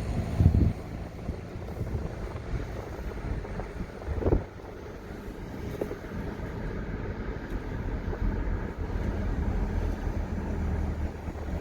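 Wind buffeting the microphone over the low rumble of a moving vehicle, with a brief knock about half a second in and another about four seconds in.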